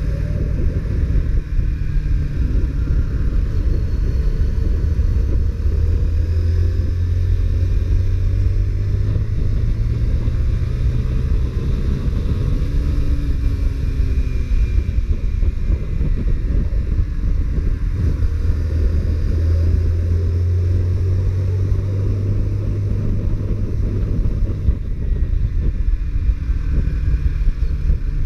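Honda CBR125R's single-cylinder 125 cc four-stroke engine running on the move through its stock exhaust, a steady low rumble whose note rises and falls a few times.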